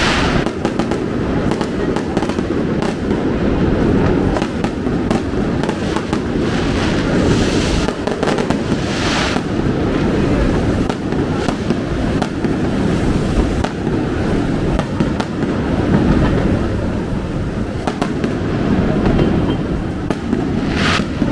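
Aerial fireworks going off in a continuous barrage of bangs and crackling, with louder bursts now and then.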